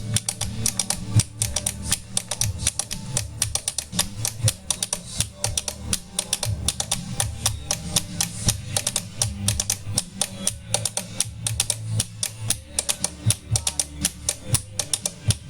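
Instrumental music: a rapid, dense clicking percussion pattern over a low droning bass line.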